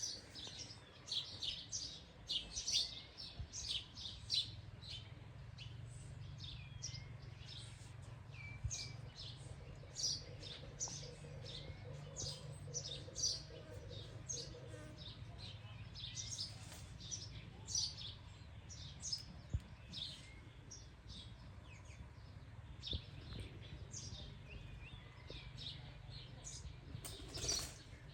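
Several small birds chirping, with many short high calls in quick succession, over a steady low background hum.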